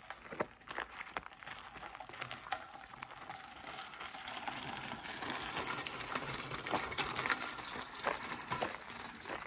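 Gravel crunching and crackling on a driveway, with many small clicks. It grows louder over the first few seconds.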